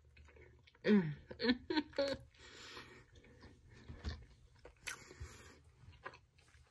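A person eating a mouthful of soft fudge-filled doughnut: several short hummed 'mm' sounds in the first couple of seconds, then quieter chewing with small wet mouth clicks.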